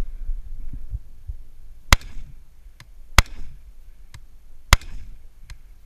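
Three rifle shots from a scoped rifle fired at steel targets, spaced about a second and a half apart, each with a short echo.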